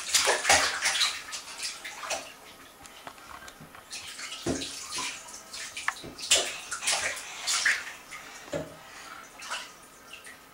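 Bathwater splashing and sloshing in irregular bursts as a baby slaps and plays in a bathtub, with a couple of duller knocks about four and a half and eight and a half seconds in.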